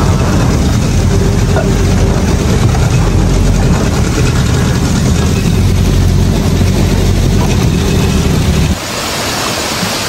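Boat engine running steadily with a low drone, then cutting off abruptly near the end.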